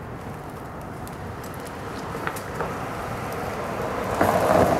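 A car driving past on the street, its noise building to the loudest near the end. A few light clicks sound about two seconds in.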